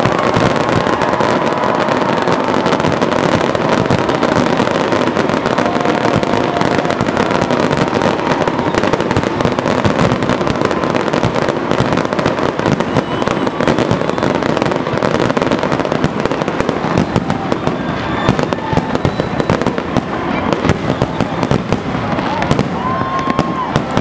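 Fireworks display in a dense barrage: a steady stream of bangs and crackles from many shells bursting at once.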